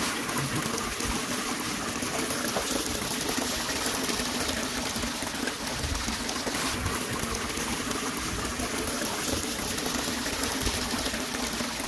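A steady, even rushing hiss with no breaks.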